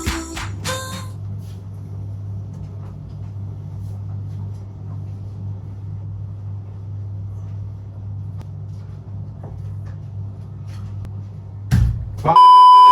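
A steady low electrical-sounding hum, then near the end a brief thump and a short, very loud, high electronic beep.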